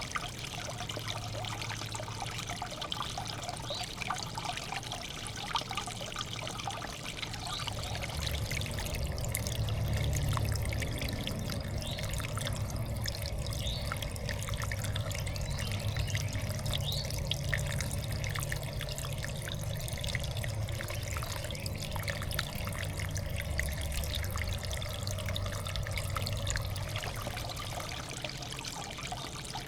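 Water trickling steadily into a backyard bird bath, with many small ticks and splashes. A low hum sits underneath from about a third of the way in until near the end.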